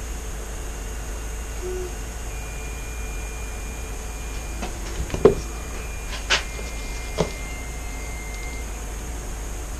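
Steady low hum and hiss of room background noise, with three or four light knocks and taps about halfway through, the second one the loudest.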